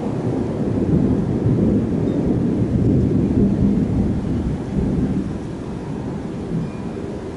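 Low rolling thunder that builds over the first few seconds and then slowly dies away, with rain falling under it.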